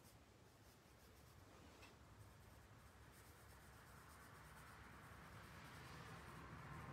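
Faint scratching of a pencil shading on sketchbook paper, growing louder over the second half.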